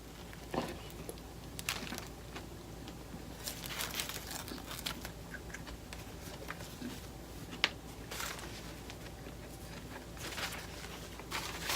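Faint crinkling and rustling of food packaging, with scattered small crunches and clicks and one sharper click about two thirds of the way through.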